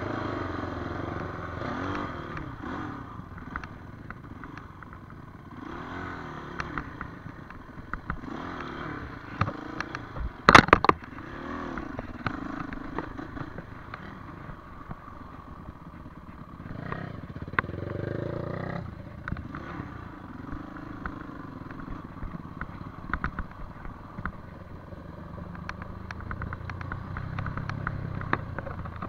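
Enduro dirt bike engine revving up and down as it rides a rough dirt trail, heard from on the bike. About ten seconds in there is a loud burst of sharp clattering knocks.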